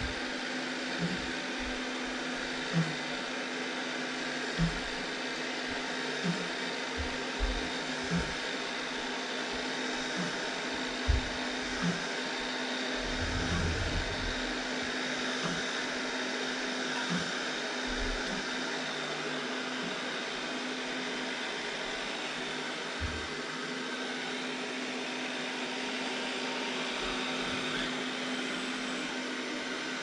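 Robot vacuum-mop running its suction motor with a steady whirring hum as it drives across a table-tennis table top, with short low thumps now and then, most often in the first half.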